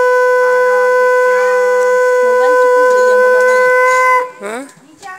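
Conch shell (shankh) blown in one long, loud, steady note that ends about four seconds in with a short upward slide in pitch.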